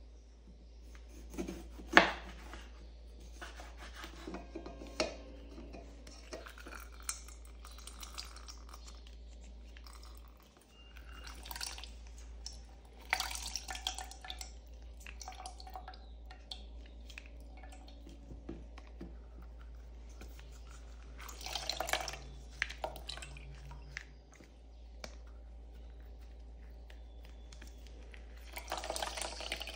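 Lemon halves being pressed in a hand-held citrus squeezer over a plastic jug, the juice dripping and splashing in, with scattered clicks and taps from the squeezer and utensils being handled. The sharpest tap comes about two seconds in.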